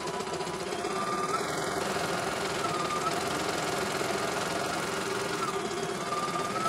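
CNY E900 computerized embroidery machine stitching a test design: a steady, rapid needle clatter with its motor running, and a short higher whine recurring every second or two.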